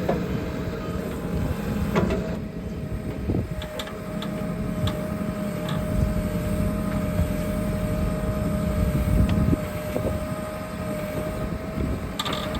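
Backhoe's diesel engine running steadily, with a steady whine over it and a few short knocks.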